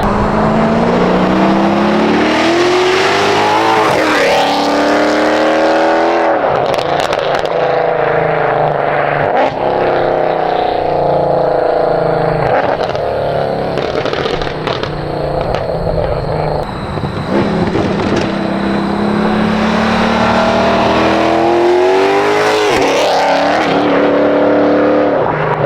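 Mercedes W204 C63 AMG's naturally aspirated V8 through a Valvetronic Designs valved exhaust, accelerating hard: the engine note climbs and drops sharply at several upshifts.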